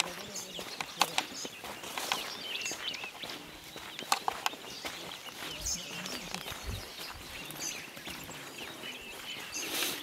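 Small birds chirping repeatedly in scrubland, with footsteps and scattered clicks and rustles from people walking a dirt path through low bush.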